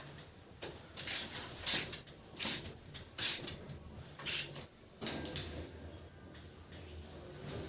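A series of short scraping, rustling handling sounds, about one a second, over a faint low hum.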